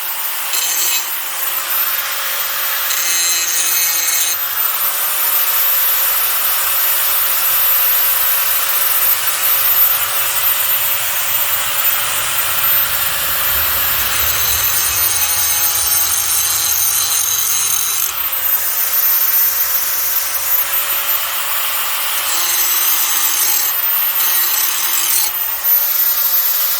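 Hand-held angle grinder with a new grinding wheel grinding the edge of a dull steel mower blade: a steady motor whine under a harsh grinding rasp that comes and goes as the wheel is worked along the steel.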